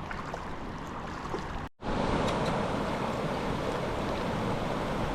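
Shallow river water running over rocks, a steady rushing sound. It drops out for a moment about two seconds in, then comes back louder.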